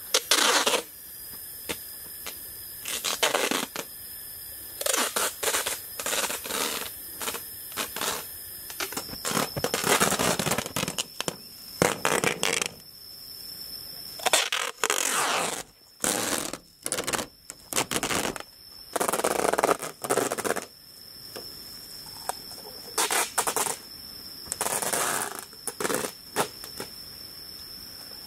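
Hands scraping dry soil and crinkling plastic wrap on the ground, in irregular short bursts of scraping and crackling. A steady high tone runs underneath.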